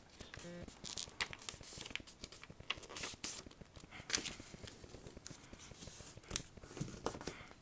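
A sheet of paper being folded and creased by hand: scattered soft rustles and crinkles with a few sharper crackles.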